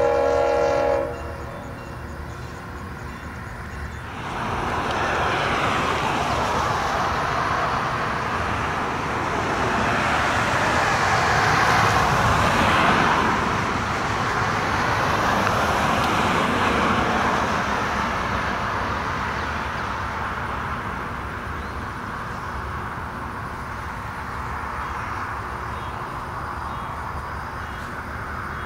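NC&StL GP7 #710's diesel locomotive horn sounding a chord, cut off about a second in. A broad rushing noise then swells for about ten seconds and slowly fades.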